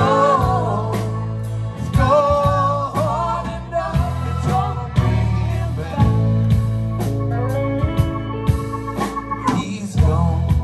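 A live rock band playing, with drums, bass, guitars and keyboards, and voices singing over it.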